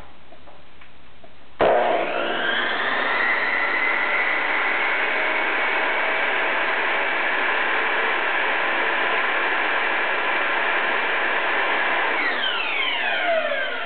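Makita 5402NA 16-inch circular saw switched on about one and a half seconds in, its motor whining up to speed and then running steadily at full speed. Near the end the trigger is let go and the saw winds down with a falling whine.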